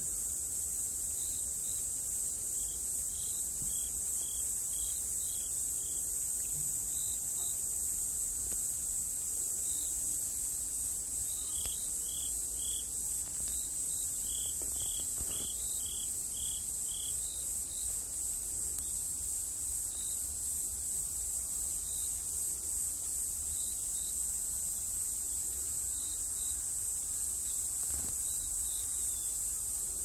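Insects, such as crickets or cicadas, keep up a steady high-pitched drone. Short chirps repeat over it, coming in a quick run about halfway through.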